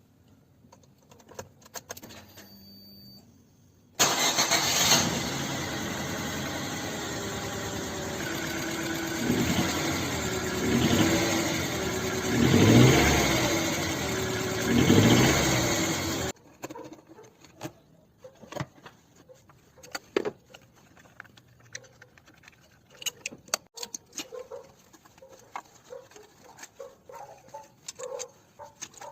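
JAC car engine running with a misfire, revved up about four times. It comes in suddenly about four seconds in and cuts off abruptly after about twelve seconds, leaving light clicks and metallic clinks.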